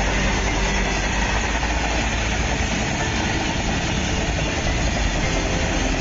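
Freight train's open-top wagons rolling past on the track: a steady, even rumble of wheels on rails.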